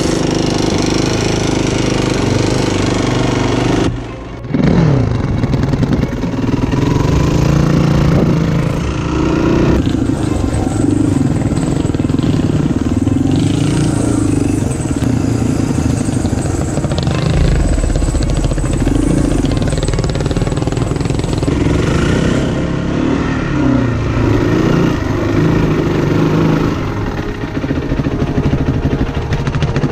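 Yamaha WR450F's single-cylinder four-stroke engine, its leaking exhaust freshly riveted, revving up and down under throttle while the enduro bike is ridden. About four seconds in, the sound drops briefly and then the engine revs back up.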